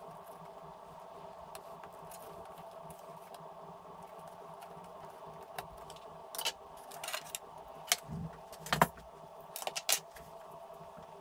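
Sharp clicks and small clatters of hand-handled parts, the Amstrad CPC464's plastic case and cassette deck assembly being worked free and set down, coming in a scattered cluster from about halfway through. A steady background hum runs underneath.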